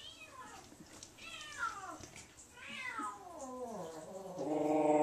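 Wet young orange tabby cat meowing unhappily while being bathed: several short falling meows, then a louder, drawn-out lower yowl near the end.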